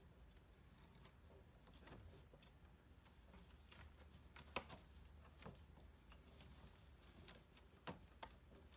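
Faint scattered taps, scratches and rustles of kittens scrambling and wrestling in woven wicker baskets, with the sharpest taps about four and a half and eight seconds in.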